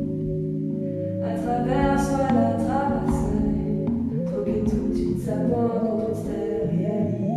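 A woman sings into a handheld microphone over a steady drone of several low, held tones. Her voice comes in about a second in and sings two phrases with a short gap between them.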